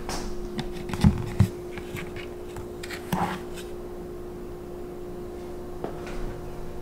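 A few sharp knocks and clicks of a plastic protein-powder tub being handled and scooped from, over a steady hum.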